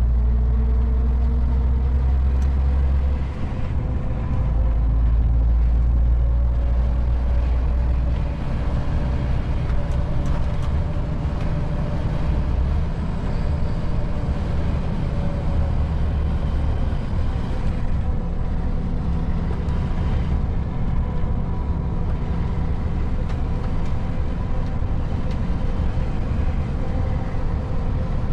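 MAN TGX 440 truck's straight-six diesel engine running under way, heard from inside the cab, with road and tyre noise. There is a heavy low rumble that dips briefly about three seconds in, swells again for a few seconds, then settles to a steady drone.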